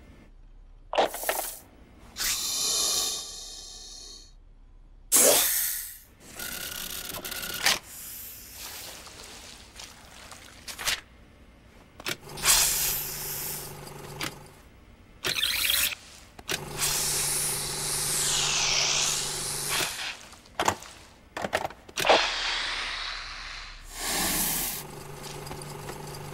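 Cartoon sound effects: snake characters talking in a series of hisses and raspy rattles, mixed with a steady electronic hum from lab machinery that comes and goes several times. A falling-then-rising sweep sounds about two-thirds of the way through.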